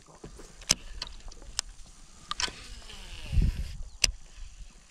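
Fishing tackle being handled: a series of sharp clicks and light knocks from a baitcasting rod and reel, with a brief hiss that cuts off suddenly and a dull thump about three and a half seconds in.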